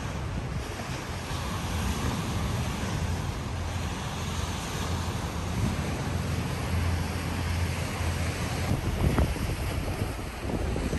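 Wind buffeting the microphone, a fluctuating low rumble over a steady rushing noise.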